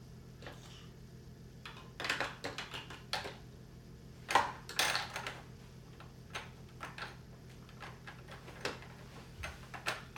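Plastic toys on a baby walker's tray clicking and rattling as a baby bats and pulls at them, in irregular clusters of sharp clicks, with the loudest clatter about four to five seconds in. A faint steady hum lies underneath.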